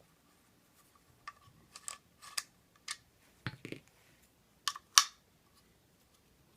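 Small scattered clicks and taps of an Allen wrench working the butt pad screws out of a polymer rifle buttstock, with a dull knock about three and a half seconds in and the loudest sharp click about five seconds in.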